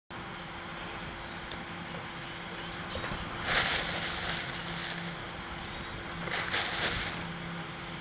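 Crickets chirping steadily, with two bursts of rustling about three and a half and six and a half seconds in.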